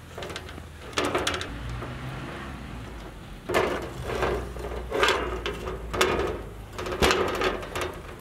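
Cloth dragging and rustling over a steel tray as steamed idlis are peeled off it, in repeated scraping strokes about once a second, louder from about halfway.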